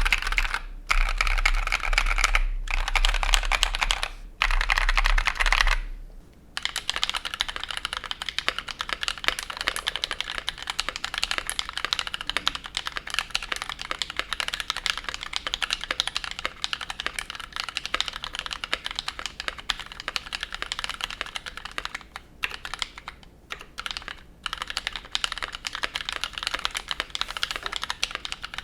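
Typing on a custom mechanical keyboard, a KBD67 MKII with a brass plate and lubed, filmed NovelKeys Cream linear switches. The first six seconds are dense, fast bursts of keystrokes with short pauses; after that comes a steady run of separate key clicks.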